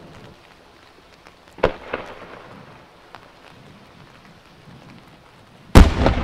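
An aerial firework shell launched from its mortar with a sharp thump about a second and a half in, then bursting with a loud bang near the end, followed by a long rolling echo.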